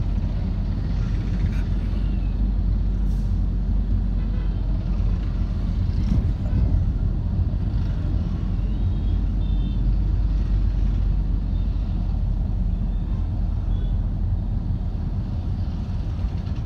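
Road traffic heard from inside a moving vehicle: a steady low rumble of engines and road noise, with motorcycles and an auto-rickshaw riding alongside. A few faint short high tones sound near the middle.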